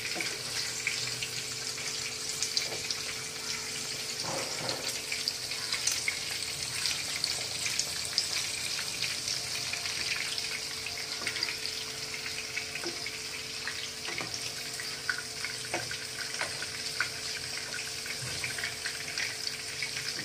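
Battered prawns frying in hot oil in a pan, a steady sizzle with fine crackling, with a few light taps of a steel slotted spoon turning them.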